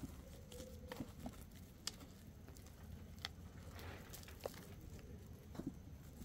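Faint rustling and a few scattered small ticks as a hand pulls weeds and moss out of the soil of a bonsai pot.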